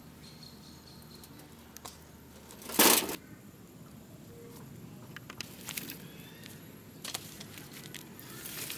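Wood fire crackling in the firebox of a small brick kiln, with scattered small pops and one loud, short crack about three seconds in.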